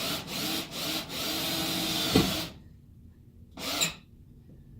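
Power drill driving a self-drilling Teks screw through the plywood subfloor: the motor runs in short pulses, then steadily for about a second and a half, with a sharp thump just before it stops. One more short burst of the drill follows about a second later.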